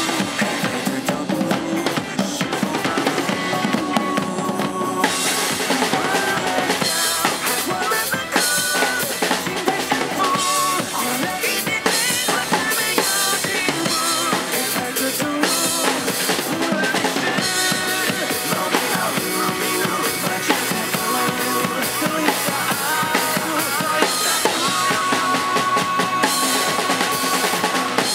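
Acoustic drum kit played live, with kick drum, snare and cymbals, over a rock backing track from a PA speaker. The cymbal wash grows denser from about five seconds in.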